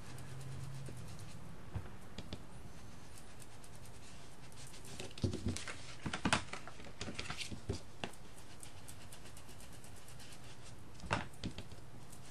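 Scattered soft taps and scuffs of a makeup sponge being dabbed on an ink pad and rubbed around the edges of a cardstock card front, over a steady low hum. The taps come in a cluster around the middle and again near the end.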